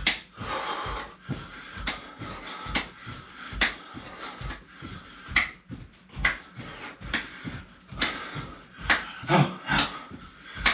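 A person doing seal jacks: a steady rhythm of feet landing and hands clapping, about one a second.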